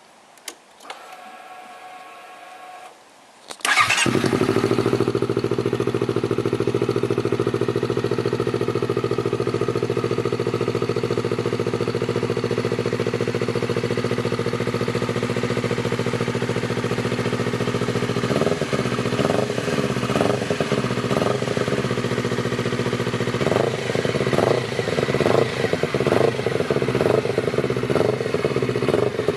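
Honda CBR250RR fitted with a stainless racing-type silencer: a click and a short electric whir, then the engine starts about four seconds in and idles steadily. From about eighteen seconds in, the throttle is blipped again and again, with the pitch rising and falling in quick revs.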